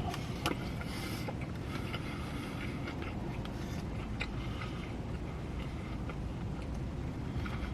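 Steady low rumble of a car's idling engine and ventilation heard from inside the cabin, with a few faint soft clicks scattered through it.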